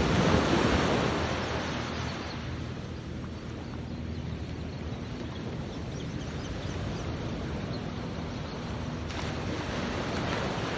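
Ocean surf washing on the beach, a swell of noise in the first second or two that eases into a steady wash, with wind buffeting the microphone.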